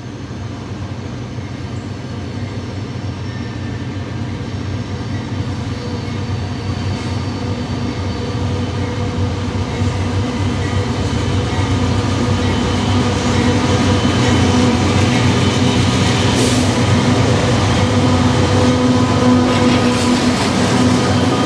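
CSX freight train led by two GE AC4400CW diesel-electric locomotives approaching and passing. The diesel rumble and steady engine hum grow louder throughout, peaking as the lead locomotive goes by near the end.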